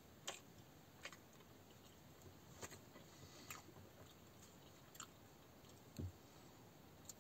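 Faint sounds of a man eating bread: soft chewing with scattered small clicks and crackles of the crust tearing, and one soft low thump about six seconds in.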